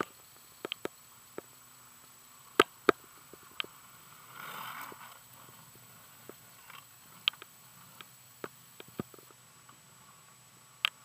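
Faint hiss of longboard wheels sliding on asphalt about four and a half seconds in, over a quiet background broken by scattered sharp clicks.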